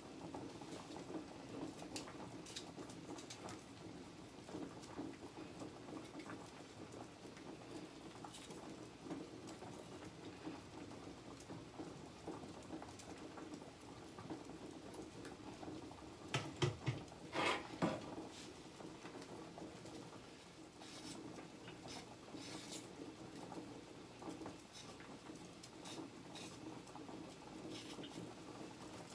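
Knife cutting a tomato and pepper in hand over a ceramic plate: faint scattered ticks and small scrapes as the blade and pieces touch the plate, over a steady background hum. A few louder knocks come together a little past halfway.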